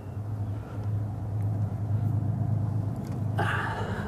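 A steady low engine-like hum runs throughout, with faint light metallic ticks as a semi truck's spindle nut is turned on by hand onto the axle spindle threads. Near the end comes a short vocal sound.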